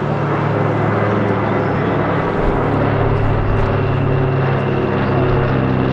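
A PBY-5A Canso's twin Pratt & Whitney R-1830 radial engines and propellers, a loud, steady, deep drone as the flying boat flies its display.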